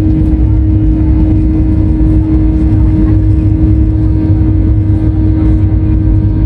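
Cabin noise of a Southwest Boeing 737 rolling along the ground: steady jet engine rumble with a constant hum, neither rising nor falling.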